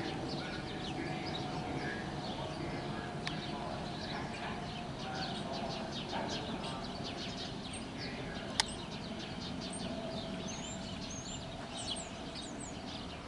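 Small birds chirping and twittering, with short high calls scattered throughout, over the low steady hum of a stopped R44 subway car waiting at the platform. One sharp click about eight and a half seconds in.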